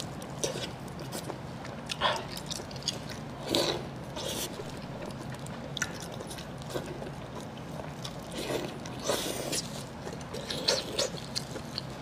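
Close-up eating sounds of pork intestine wrapped around brain: soft, wet bites and chewing that come in scattered bursts, a few times over the stretch.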